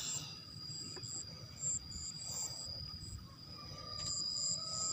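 Field insects giving a steady high trill, with short higher chirps on and off, over a low rumble.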